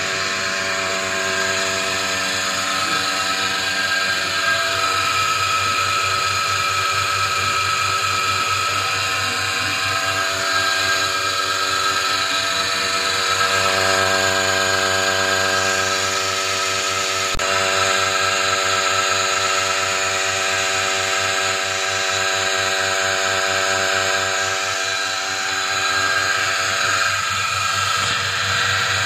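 Vacuum pump of a single-bucket milking machine running with a steady mechanical hum.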